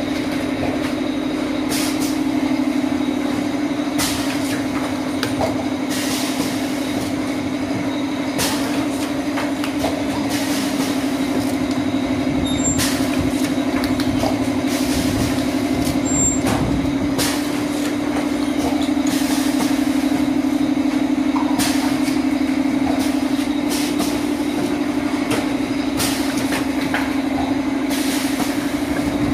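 Pneumatic cup filling and sealing machine running: a steady hum, with short hisses of air from the pneumatic cylinders about every two seconds as the filling heads cycle.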